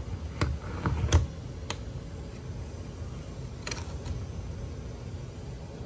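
Air handler blower running steadily in cooling mode, under a few sharp clicks and taps as a brass static pressure probe is handled and pushed into a port in the foil-faced duct board: four clicks in the first two seconds and a short cluster about four seconds in.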